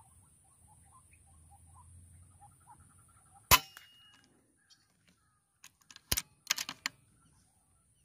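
Faint bird chirps, then a single sharp rifle shot about three and a half seconds in, with a short ring after it. A quick cluster of sharp metallic clicks follows about six seconds in.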